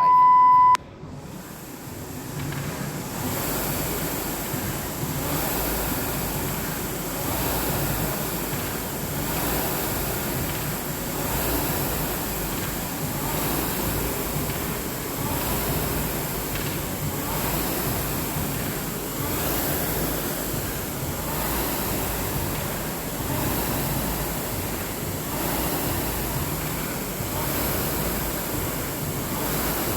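A timer beeps once at the start, then a Concept2 RowErg's air flywheel whooshes steadily, surging with each stroke about once every two seconds as the rower is pulled hard.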